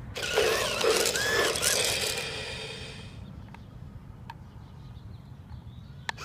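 Plastic clattering and rattling as a battery-operated toy train is handled, loudest for the first three seconds and then dying away, followed by a few faint clicks.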